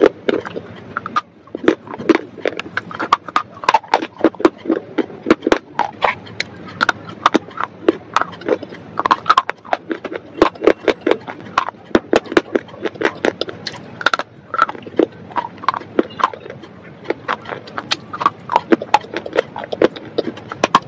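Close-miked crunching and chewing of hard, dry, brittle pieces: a fast, uneven run of sharp crackles as they are bitten and ground between the teeth.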